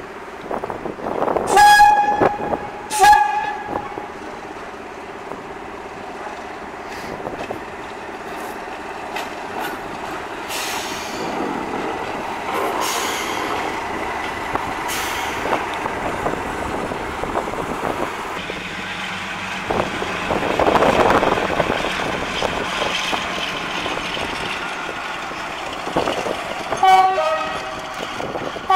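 Diesel locomotive horns sounding twice near the start. Then a class 37 diesel locomotive passes close, its engine noise swelling to a peak about two-thirds of the way through, and more horn notes sound near the end.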